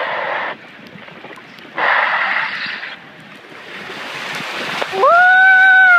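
Rushing wind and water noise from a fast ride down a mat-racing water slide, buffeting the microphone and building as the rider picks up speed. About five seconds in, a long, high-pitched scream starts and is held.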